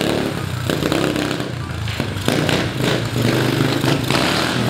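Small pit bike with a 125 cc engine running as it is ridden.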